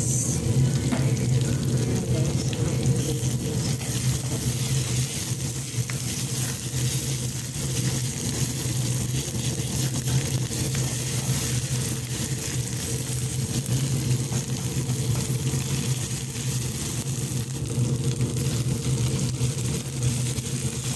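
Ground beef and tomato paste sizzling in hot oil in a pan, with a spatula stirring and scraping through the mixture. A steady low hum runs underneath.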